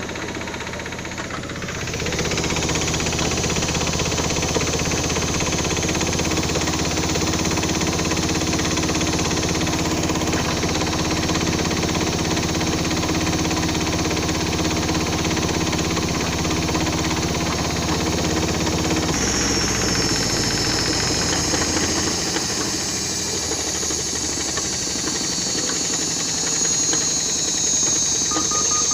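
Siemens IQ 1431 washing machine spinning with vibration and knocking. A steady hum gets louder about two seconds in; about two-thirds of the way through the low hum drops away and a high whine takes over. The owner has checked the shock absorbers, counterweights and levelling and wonders whether the drum's suspension springs have stretched.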